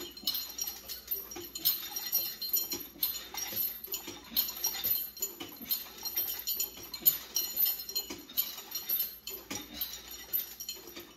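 A home gym cable machine working through lat pulldown repetitions. The chain-hung pulldown bar jingles and the weight stack clinks with each rep, about once a second or so.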